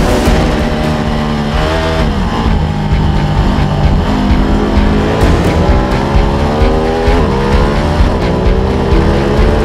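1000 cc superbike engine heard from an onboard camera, revs climbing and dropping through the gears. The revs fall about two seconds in and again about seven seconds in, and climb in between.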